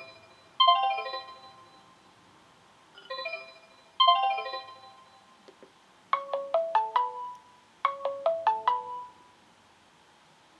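Sonim XP6 mobile phone playing a ringtone through its loudspeaker: short melodic phrases of bright, chime-like notes repeated, then about six seconds in a quicker run of falling notes played twice.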